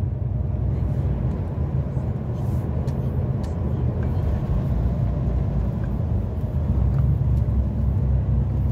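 Steady low rumble of a heavy truck's engine and road noise, heard inside the cab while driving.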